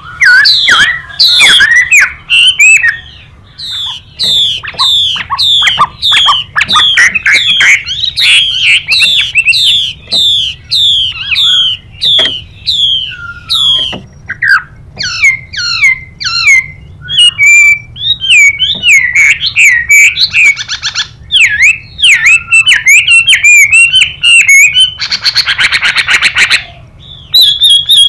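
Chinese hwamei singing long runs of loud, rapid whistled notes that slide down in pitch. Twice, about two-thirds in and again near the end, a harsh hissing call cuts in: the female hwamei's 'xùy' call answering the male's song.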